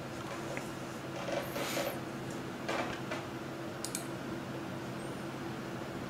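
Quiet room tone with a steady low hum, a couple of faint soft rustles, and a short run of light clicks about four seconds in.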